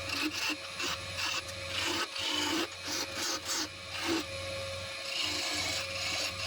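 Wood lathe running with a steady hum while a tool works the spinning wood in short, uneven scraping strokes.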